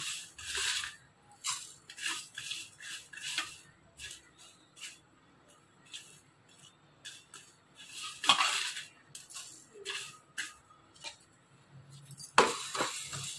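Coriander seeds dry-roasting in a nonstick frying pan, giving scattered light ticks and crackles as they heat. About twelve seconds in, a dense rattle starts as a wooden spatula stirs the seeds across the pan.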